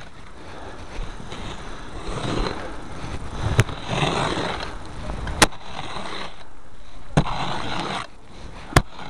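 Snow scraper pushing heavy wet snow off a truck in long scraping strokes, with four sharp clicks as the scraper knocks against the vehicle.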